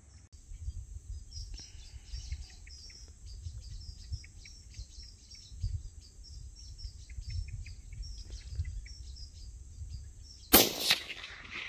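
A single rifle shot from a silencer-fitted .17 HMR: a sharp, loud crack with a short echo near the end, since the silencer does little against the fast bullet. Before it, birds chirp again and again over a low rumble.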